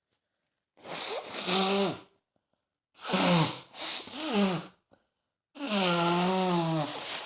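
A woman sneezing from a mild cold with a tickle in her nose, in three voiced bursts: the middle one doubled and the last long and drawn out.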